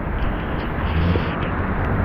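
Steady outdoor street noise: a continuous rushing sound over a low rumble.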